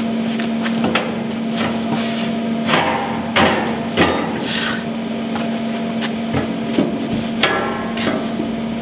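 Irregular clunks and knocks of a steel hull plate being handled and pushed into place in the bevelled hole in a steel boat hull, the loudest a few seconds in and again near the end, over a steady low hum.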